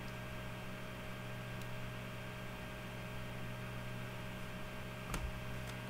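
Steady low electrical hum over a constant hiss, with a faint click about five seconds in.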